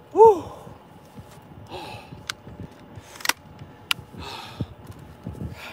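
A man's short high-pitched exclamation, then heavy breaths and exhales as he is out of breath from landing a catfish, with three sharp clicks in between.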